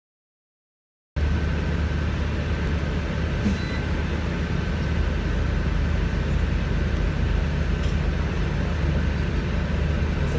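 Steady engine and road hum of a bus heard from inside the passenger cabin, a low rumble that holds level throughout. The sound is completely cut out for about the first second.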